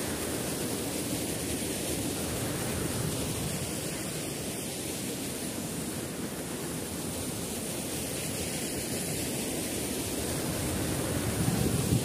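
Steady, even rush of falling water from a waterfall, with a brief low swell just before the end.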